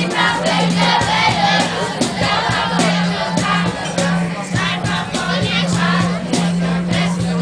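A group of people singing together, with frequent sharp taps in among the voices and a steady low hum underneath.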